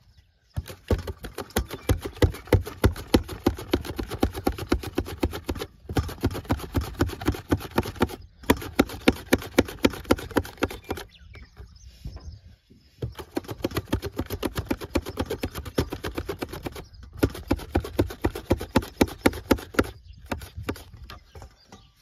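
Cucumbers being slid back and forth over a plastic mandoline slicer into a stainless steel bowl: a fast, even run of slicing strokes, several a second. The run breaks off briefly a few times as a new cucumber is started.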